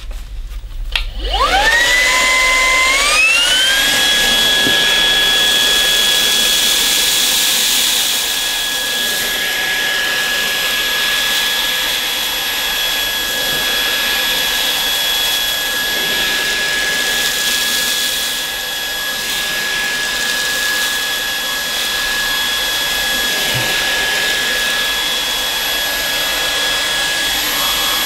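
Lupe Pure cordless vacuum cleaner running on maximum suction, used in handheld mode with its hose and a small tool to suck up rice from a wiry carpet. The motor starts about a second in, its whine climbing in two steps to a steady high pitch, and it is switched off at the very end.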